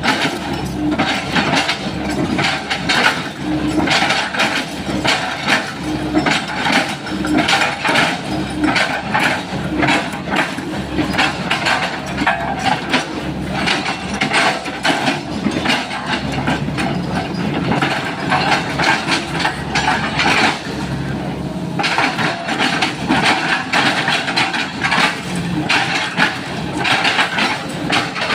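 Sany SY135 excavator's diesel engine running under load while its bucket chops up an oil palm trunk, giving a dense run of wood cracking and knocking that eases briefly about three quarters through.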